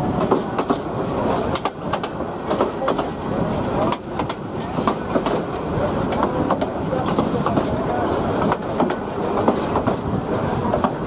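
Bangladesh Railway train running on the track: a steady rumble of wheels on rail, with frequent irregular clicks and knocks from the wheels and carriages.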